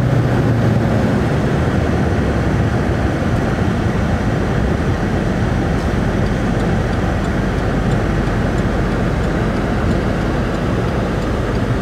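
Steady driving noise inside a vehicle's cab: road and engine noise as it rolls along at low speed.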